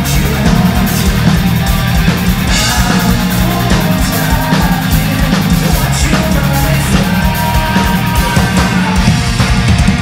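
Live hard rock band playing loud: distorted electric guitars, bass and drums at full volume, with some singing.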